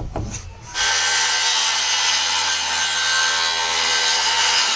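Handheld circular saw cutting through a sheet of plywood. The cut starts about a second in, runs steadily with the motor's whine over the blade noise, and stops suddenly near the end.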